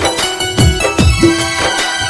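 Instrumental music from a Hindi song with a steady beat of deep drum hits, about two a second, under held melody notes.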